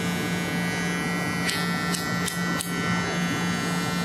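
Brand-new Gamma+ X Ergo cordless hair clipper with a microchipped motor, running unloaded in a run test: a steady, very quiet motor hum with a high whine above it. Four short clicks come a little past halfway.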